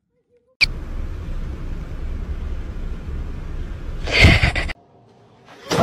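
Steady road rumble inside a moving car, with a loud short burst about four seconds in.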